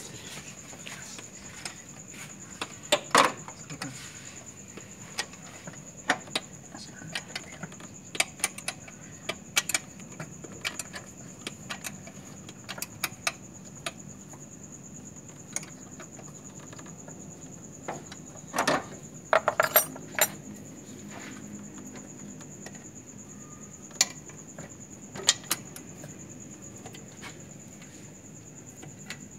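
Metal hand tools clinking and clattering during car repair work: scattered sharp clicks and knocks, with a louder cluster of ringing metallic clanks about two-thirds of the way through.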